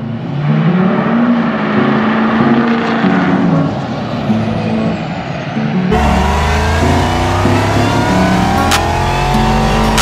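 Vehicle engine noise from the lifted truck at first. About six seconds in it cuts to a supercharged Dodge Charger Hellcat V8 on a chassis dyno under a pull: a deep rumble with a supercharger whine that rises steadily in pitch.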